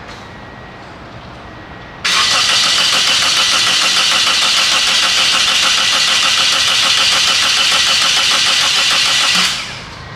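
Starter cranking a 2003 Toyota Corolla's 1.8-litre four-cylinder engine. It starts about two seconds in, runs with a nice even cadence for about seven seconds and stops near the end, without the engine ever catching. The engine sounds like it has good compression but has not even a hint of fire, a no-start that was traced to the insurance company's adapter plugged into the diagnostic (ALDL) port.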